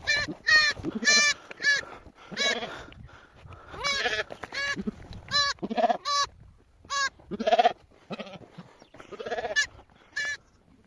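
Sheep bleating over and over: a dozen or so short, quavering bleats, some high-pitched and some lower, which sounds like more than one animal.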